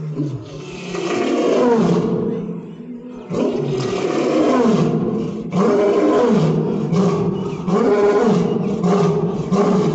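African lion roaring: a bout of a few long, deep calls followed by shorter, quicker ones in the second half.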